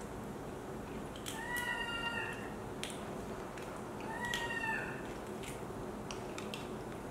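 Baby macaque giving two short, high, steady-pitched calls, about a second and a half in and again past four seconds, with a few light clicks between them.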